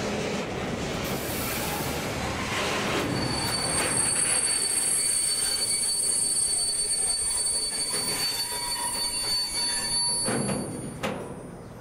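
Long freight train of sliding-wall covered wagons rolling past on a curve: a steady rumble of wheels on the rails, with a high, steady wheel squeal from about three seconds in until near the end. A couple of sharp knocks follow as it quietens.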